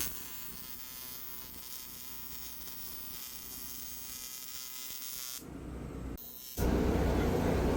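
A TIG welding arc buzzing steadily for about five seconds. It cuts off abruptly, and a louder, lower rumbling noise follows.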